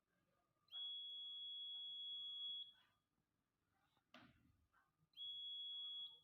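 Alarm circuit's buzzer sounding a steady high-pitched beep twice: one about two seconds long, then a shorter one near the end. This is the alarm triggering when the infrared beam between transmitter and receiver is interrupted.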